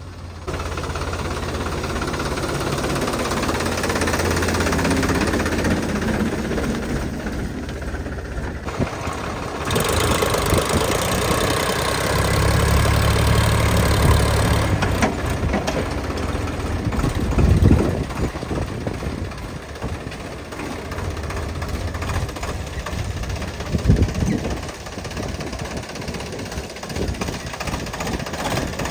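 Sonalika Mileage Master 39 tractor's diesel engine running under load as it works through deep mud, its note changing as the scenes cut. There are two sharp loud knocks, one about two-thirds of the way in and one near the end.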